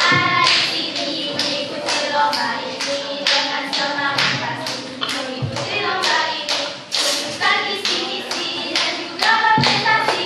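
Schoolgirls chanting a rhythmic team cheer together, their voices high and in unison, with sharp hand claps in time, a few each second.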